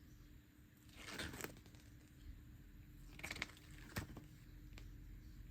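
Pages of a paper photo book being turned and handled: a few soft papery swishes about a second in and around three seconds, with a light click near four seconds.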